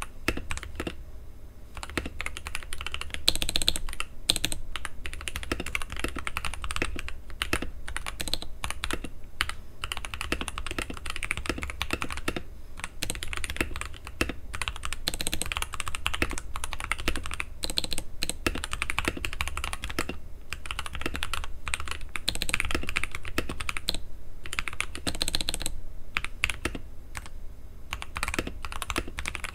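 Continuous fast typing on a TM680 (PressPlay Orbiter) custom mechanical keyboard with Aflion Iceberg switches, dampened with a tape mod, a silicone case dampener and plate foam. The keystrokes come in a dense stream with a few short pauses.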